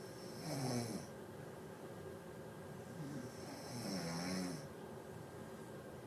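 A person snoring twice, about three seconds apart. Each snore is a short, wavering rumble with a breathy hiss, the second longer than the first.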